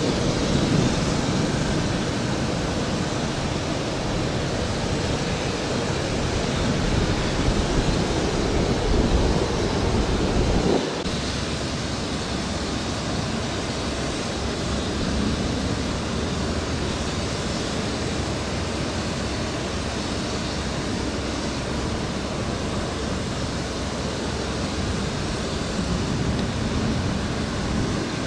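Steady rushing outdoor noise at an airport, with a heavier low rumble in the first ten seconds or so that drops away abruptly about eleven seconds in, leaving a lighter, even rush.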